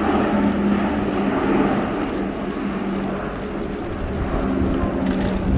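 Airbus A400M's four turboprop engines and large propellers running as the aircraft flies a steep wingover: a steady propeller hum with one low tone that fades in the middle and comes back stronger near the end.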